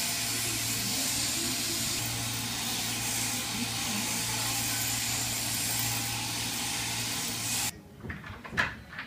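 Sheep-shearing machine handpiece running steadily, a hissing buzz with a low hum under it, as the fleece is cut off a sheep. It cuts off suddenly near the end, and a few knocks follow.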